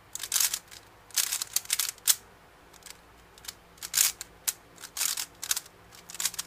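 Gans 357 3x3 speedcube being turned by hand: short bursts of quick plastic clicking and clacking as the layers turn, separated by brief pauses, with a lull of about a second a little past two seconds in.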